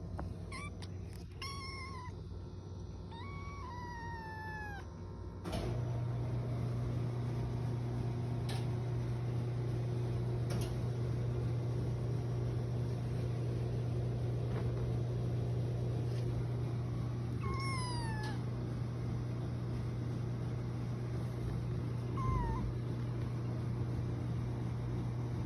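A kitten meowing: a quick run of high meows and then two longer falling ones in the first five seconds, with two more later on. About five seconds in, a steady low hum starts and runs on under the meows.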